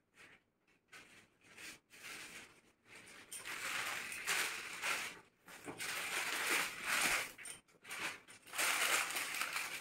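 Plastic shopping bag and the clear plastic wrapping of a folded garment rustling and crinkling as they are handled. It is faint for the first few seconds and louder from about three seconds in, with short pauses.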